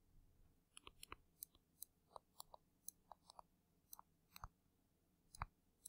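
Faint, irregular clicks and taps of a stylus on a drawing tablet as words are handwritten, about a dozen scattered ticks with a slightly louder one near the end.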